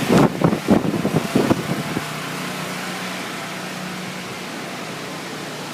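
Generator running steadily with a low, even hum, under a haze of wind noise. In the first two seconds a run of irregular louder bursts sits over it.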